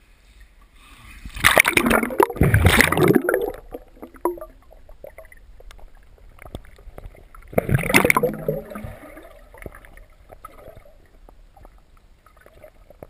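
Pond water splashing and sloshing around the camera in two loud bursts, the first lasting about two seconds and the second coming about five seconds later.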